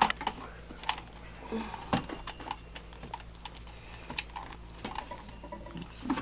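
Irregular light clicks and taps of hands handling a Singer Stylist 457 sewing machine while threading it, over a faint low hum.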